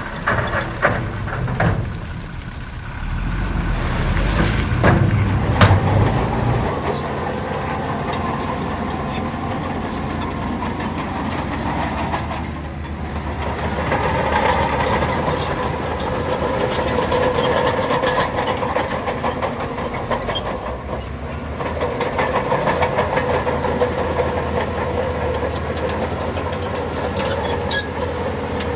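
Crawler bulldozer working: its diesel engine running steadily under load, with a whine and clanking typical of steel tracks moving, and a few sharp knocks in the first seconds.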